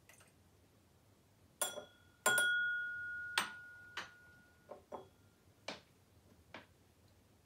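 Glass whisky tasting glasses clinking as water is added with a dropper: a series of sharp clinks. The loudest, a little over two seconds in, leaves the glass ringing for more than a second.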